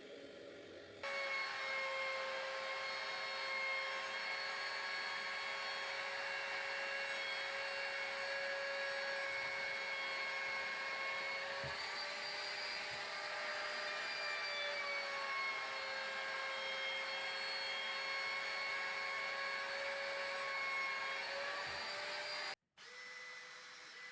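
An electric power tool's motor running steadily with a whine whose pitch dips slightly now and then, starting about a second in and cutting off abruptly near the end, followed by a fainter steady hum.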